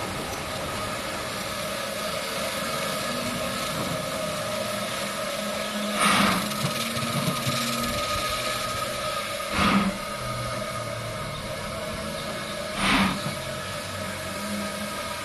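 LSWR Beattie 2-4-0 well tank steam locomotive hissing steadily with steam. Four loud, short blasts of steam come at roughly three-and-a-half-second intervals.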